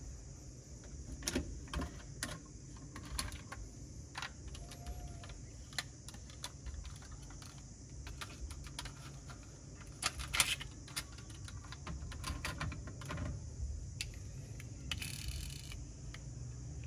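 Irregular clicks and taps of a plastic toy car-carrier truck and a die-cast toy taxi being handled as its ramp is lowered and the car taken off, with a brief scraping rasp near the end.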